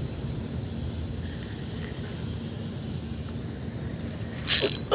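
Steady outdoor background noise: a low rumble with a constant high hiss above it. Near the end a man gives a short vocal exclamation that falls in pitch.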